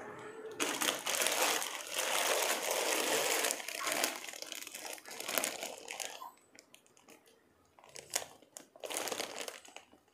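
Clear plastic poly bag around a pair of jeans crinkling as it is handled, loud and continuous for the first several seconds, then a few short rustles near the end.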